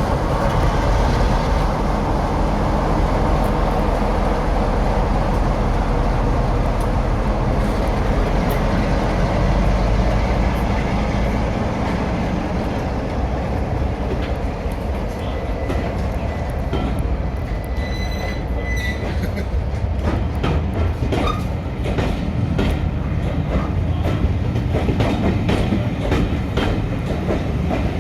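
Diesel-hauled train running past: a heavy diesel engine rumble for the first dozen seconds, then the wheels clicking over rail joints, the clicks growing busier toward the end as the coaches go by.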